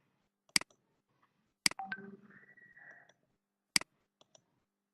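Three sharp single clicks from a computer, spaced about one and two seconds apart, with a faint hum between the second and third.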